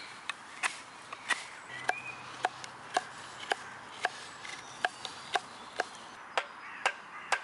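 Fixed-blade knife carving a point onto a wooden stake resting on a log, each stroke biting into the wood with a sharp crack, about two a second.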